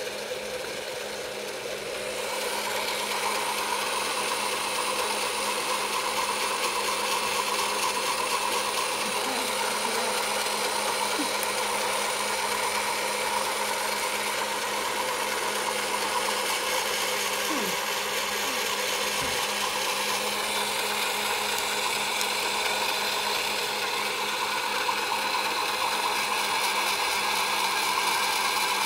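Small electric motor of an egg-decorating spinner whirring steadily as it turns an egg, growing louder about two seconds in.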